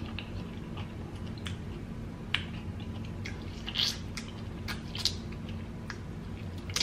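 Eating ripe green kiwifruit close to the microphone: wet bites and chewing, with short squishy clicks every second or so over a faint steady hum.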